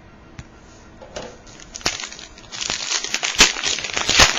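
A trading card pack's wrapper being torn open and crinkled. It starts with a few scattered clicks, then builds to a dense crackling over the second half.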